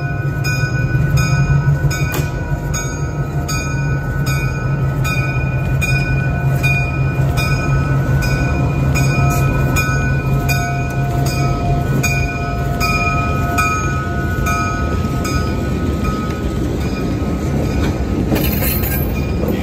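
EMD F7 diesel locomotive and a second diesel unit passing at walking pace, their engines running with a steady low drone. Over the engines a bell rings with an even beat, about one to two strokes a second.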